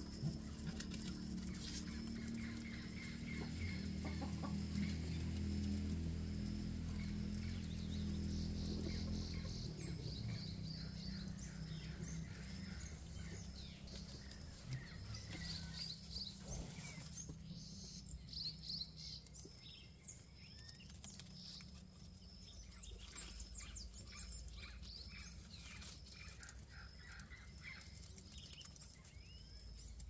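Farmyard chickens clucking, with small birds chirping repeatedly and a low steady hum through the first ten seconds or so.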